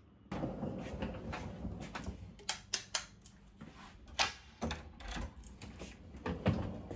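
A run of irregular clicks and knocks over a low background rumble.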